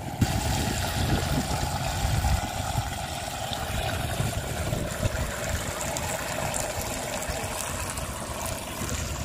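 Fuel pouring steadily from a hose into a plastic funnel in an excavator's filler neck, a continuous trickling and gurgling of liquid.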